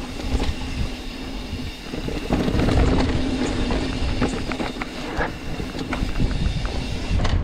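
Mountain bike rolling over a rough dirt trail: a steady low rumble with many rattling clicks and knocks from the bike, louder from about two seconds in.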